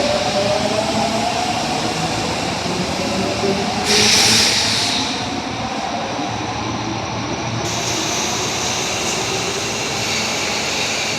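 Osaka Metro Tanimachi Line subway train running: a traction-motor whine slowly rising in pitch in the first few seconds over steady running noise, then a loud hiss about four seconds in that lasts about a second, then steady running noise.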